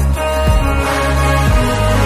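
Background music: held notes over a deep bass whose note changes about once a second.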